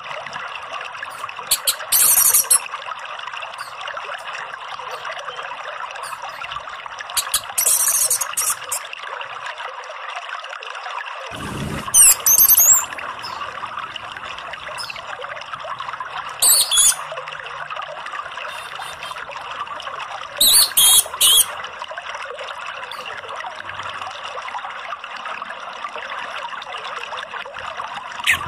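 Orange-headed thrush giving five short, high-pitched song phrases, each under a second and spaced about four seconds apart, over a steady sound of trickling water.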